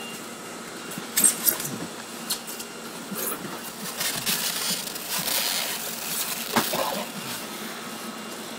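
Handling noise of cardboard lobster shipping boxes and dividers: a few sharp clicks and knocks with rustling, the strongest knock about six and a half seconds in, over a faint steady hum.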